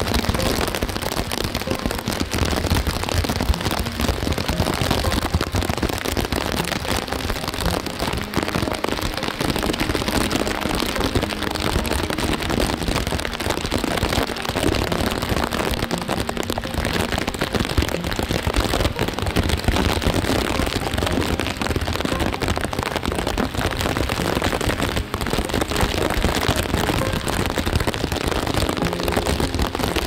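Heavy rain pouring down steadily: a dense, even patter of many drops hitting the ground and nearby surfaces.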